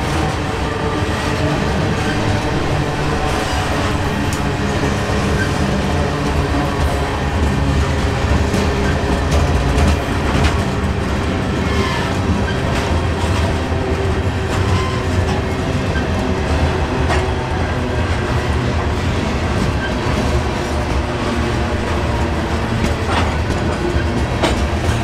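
Freight train of covered hopper cars rolling past: a steady rumble of steel wheels on rail, with irregular clicks and clanks of wheels passing over rail joints.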